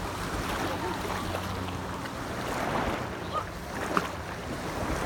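Shallow sea water lapping and sloshing around an inflatable paddleboard, with wind noise on the microphone. A brief sharp knock comes about four seconds in.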